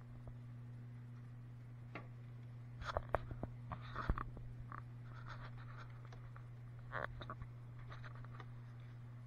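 Scattered clicks, light knocks and rustling as cushions, plastic panels and bags are moved about by hand, in two bursts a few seconds apart, over a steady low hum.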